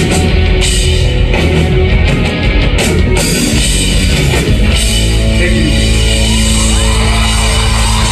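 Live rock band playing loudly: electric guitars, bass and drum kit. About five seconds in the band settles onto a long held chord, with guitar bends sliding over it.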